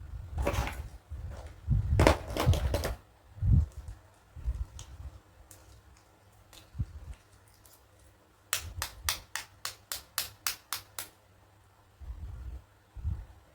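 Plastic toy dentist-kit pieces and packaging being handled: rustling and knocking in the first few seconds, then a quick run of about a dozen sharp clicks, some five a second.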